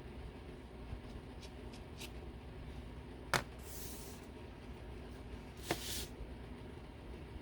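Two sharp clicks, one about a third of the way in and one past the middle, each followed by a brief hiss, over a steady low hum.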